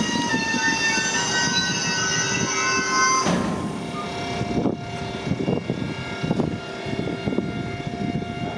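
A train at the station, with several high steady squealing tones that cut off suddenly about three seconds in, then a lower hum with irregular knocks.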